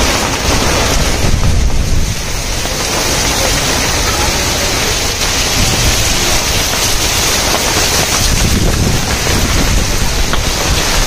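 Heavy rain pouring down steadily, with wind rumbling on the microphone.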